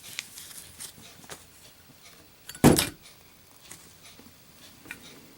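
A lit Zippo lighter dropped in a drop test, hitting the surface with one loud, short thud about two and a half seconds in. Faint handling clicks come before and after it.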